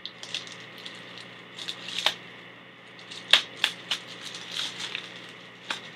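Scissors snipping open a plastic mailer, then crinkling and rustling of plastic packaging and bubble wrap being handled, heard as irregular sharp clicks and crackles.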